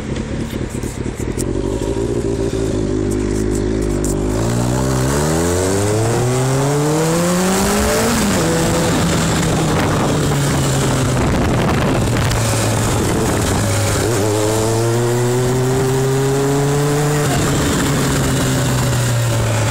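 Kawasaki ZX-6R inline-four sport-bike engine heard from on board under acceleration. The revs run low at first, climb steeply from about four seconds in and fall sharply at a gearshift around eight seconds. They hold steady, rise again at about fourteen seconds and drop at another shift near the end, with wind rushing over the bike throughout.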